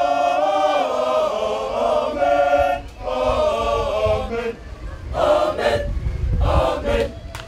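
Women's choir singing held chords, then two short phrases before the song ends about a second before the close, with a low rumble under the last phrases.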